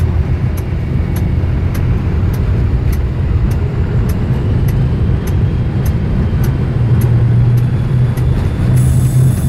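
Class 37 diesel-electric locomotive's English Electric V12 diesel engine running under power while the locomotive moves, heard from inside the cab. The low drone is steady and grows stronger over the last few seconds, with a light ticking about three times a second.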